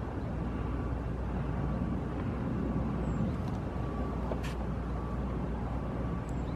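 Steady low rumble of distant traffic, with a faint steady tone above it and a single short click about four and a half seconds in.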